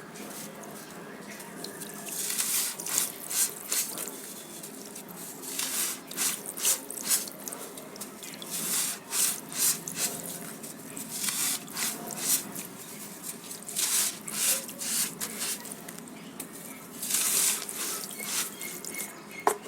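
Crunchy baked sand crumbling into water, giving bursts of crackling and fizzing with small drips. The bursts come in clusters of a second or two, separated by short lulls.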